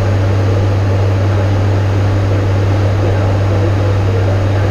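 ATR 72-500 turboprop engines and propellers heard inside the cockpit in flight: a steady low propeller hum under a constant rush of air noise.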